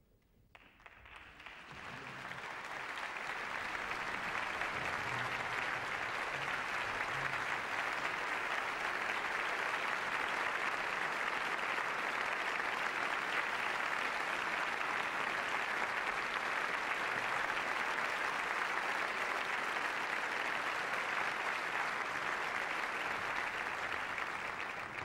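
Large concert-hall audience applauding, the clapping swelling up over the first couple of seconds, holding steady, and dying away at the very end.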